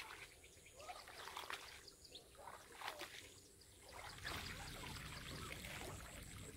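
Water trickling and splashing in short irregular bursts as a cast net is pulled in out of the water, with a low rumble coming in about four seconds in.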